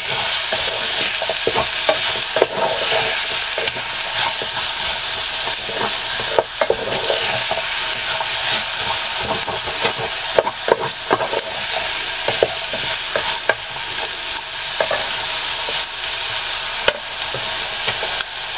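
Diced onion, carrot and bacon sizzling in bacon fat in a Trangia pan, with a wooden spoon stirring them round and making frequent short scrapes and knocks against the pan.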